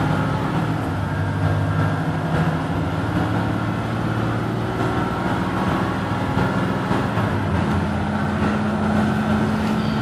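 CAT C7 diesel engine of a Blue Bird Vision school bus heard from inside the passenger cabin as the bus drives, a steady low drone with road noise.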